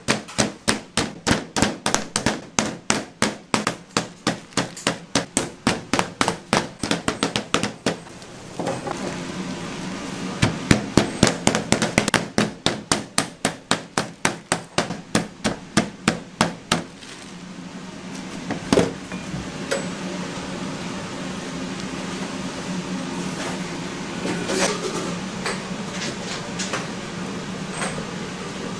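Rapid, even knocking on a cutting board, about four strikes a second, in two long runs with a short break between. After the second run stops, a steady low hum remains with a few scattered clicks.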